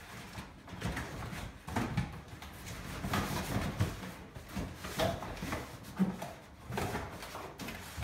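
Cardboard packaging in a bicycle shipping box being handled: irregular rustling, scraping and knocks as parts and cardboard inserts are shifted and pulled out.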